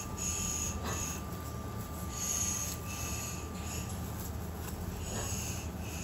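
Short breathy huffs or hisses close to the microphone, repeated at uneven intervals of roughly one every second or so.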